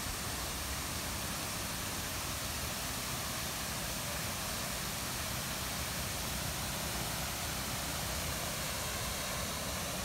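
Steady rushing outdoor noise with no distinct events.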